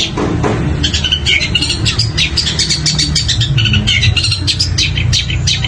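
Long-tailed shrike (cendet) singing a fast, dense run of quick high chirps and rattling notes, the rapid 'roll speed' song prized in competition birds, over a steady low background hum.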